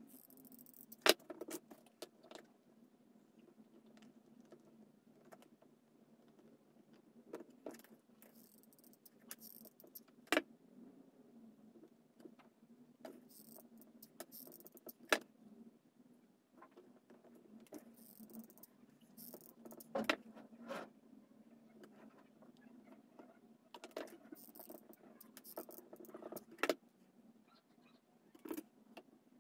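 Wooden craft sticks tapped and set down on a hard tabletop: scattered sharp clicks and knocks, with brief soft rustles in between and a faint steady hum underneath.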